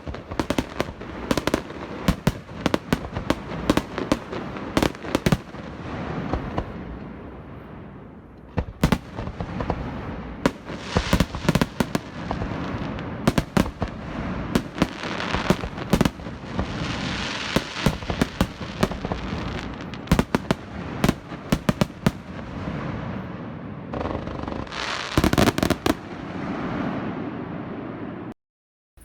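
Fireworks display: a rapid barrage of sharp bangs and crackling pops over a hissing wash, coming in waves with denser volleys in the middle and again near the end, then stopping abruptly.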